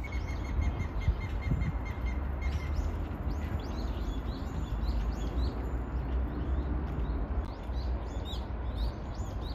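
Small birds chirping and twittering, many short high calls repeating throughout, with a rapid even trill in the first couple of seconds, over a steady low rumble.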